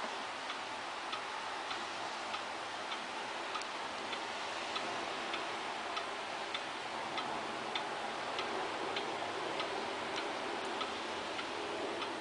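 Pendulum escapement of a German Jawaco chiming wall clock ticking steadily, a sharp tick about every 0.6 s, over a steady hiss.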